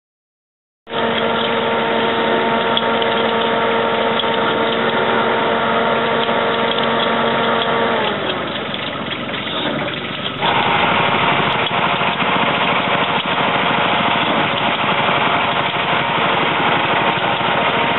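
Engine of a self-propelled tree-nursery pruning platform running steadily, starting about a second in. About eight seconds in its pitch slides down and the sound turns rougher, then a couple of seconds later it changes abruptly to a louder, coarser engine noise that stays steady.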